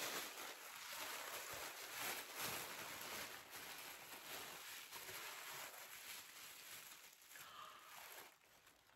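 Tissue paper rustling and crinkling as a wrapped gift is unwrapped by hand, a run of soft crackles that dies away near the end.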